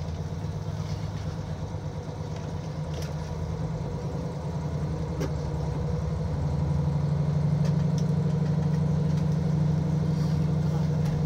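Diesel railcar engine idling under the floor, a steady low throb heard inside the cabin, which grows louder about six seconds in.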